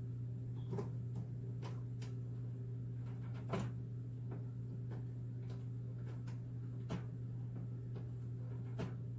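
Epson WorkForce WF-7720 inkjet printer running its initial ink charge: a steady low hum with irregular small clicks and ticks about once a second, the loudest about three and a half seconds in.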